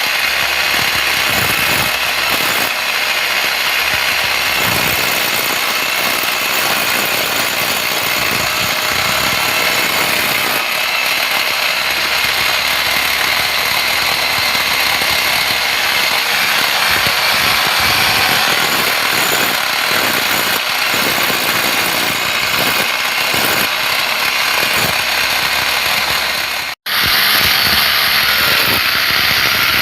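A machine's motor running steadily and loudly, with a brief break about 27 seconds in.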